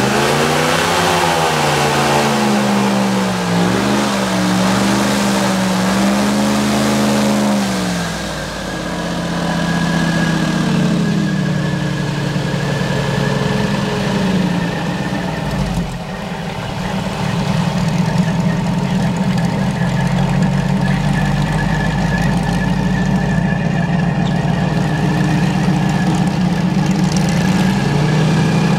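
Airboat engine and propeller running loud, the pitch rising and falling with revs for about the first eight seconds, then holding a steady drone as the boat runs at speed over the water.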